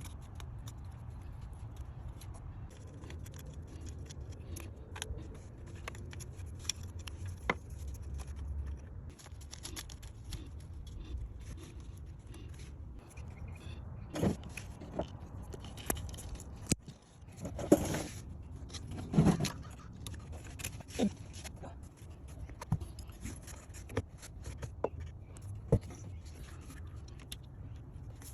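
Metal hand tools and parts clinking, clicking and scraping irregularly during car repair work, over a steady low hum.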